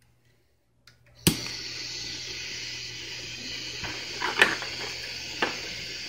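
Butane micro torch igniting with a sharp click about a second in, then its flame hissing steadily, with a few light clicks near the end.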